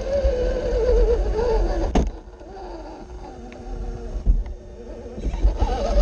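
Electric motor and geared drivetrain of an SCX6 RC rock crawler whining, the pitch wavering up and down with the throttle. There is a sharp knock about two seconds in, then the whine drops lower and quieter until it picks up again near the end.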